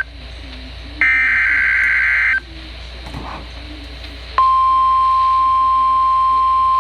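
NOAA Weather Radio SAME header: a burst of raspy digital data tones about a second in, lasting over a second. About four seconds in, the steady single-pitch 1050 Hz warning alarm tone starts, the signal that a warning message follows.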